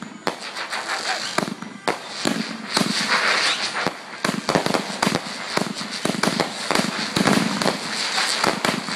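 Fireworks finale: aerial fireworks bursting overhead in a rapid barrage. Many sharp bangs come close together over continuous crackling.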